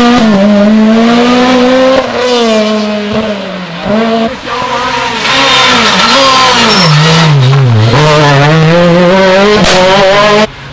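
Rally car engine revving hard, its pitch climbing and dropping repeatedly through gear changes and throttle lifts. The sound eases back about two and four seconds in, then cuts off abruptly near the end.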